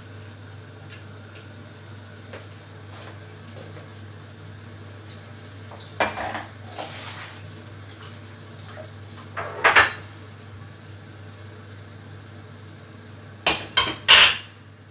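Kitchen dishes and utensils clattering: one clatter about six seconds in, another just under ten seconds in, and two sharp, loud clinks near the end, over a steady low hum.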